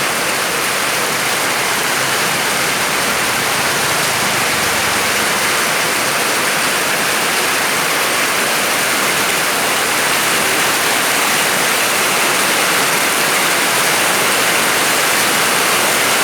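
Heavy tropical downpour: a loud, steady hiss of rain.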